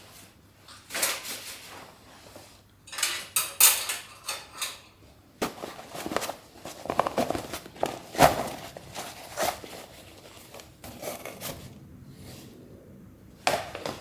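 Camping gear being handled and set down: irregular clicks, clinks and knocks, thickest in a short run through the middle.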